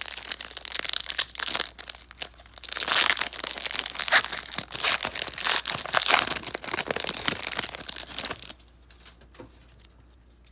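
Wrapper of a football trading card pack being torn open and crinkled by hand: dense crackling and rustling that grows louder about three seconds in and stops abruptly about two seconds before the end.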